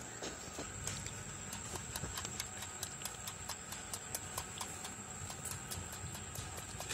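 Goat kid suckling at its mother's udder, with irregular light clicks and taps from the nursing and the goats' hooves on the concrete floor. A steady high-pitched whine runs underneath.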